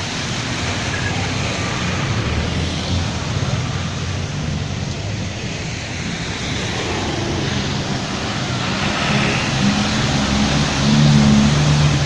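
Steady rush of muddy floodwater flowing across a street, mixed with wind on the microphone. From about two-thirds of the way in, a bus engine grows louder as the bus drives through the flood, its wheels throwing up spray near the end.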